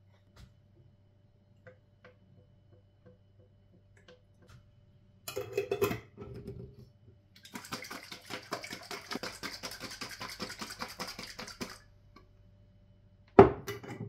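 A hand-twisted pepper mill grinding black pepper: a fast, even run of dry crunching strokes lasting about four seconds. It comes after a brief clatter, and a single sharp knock follows near the end.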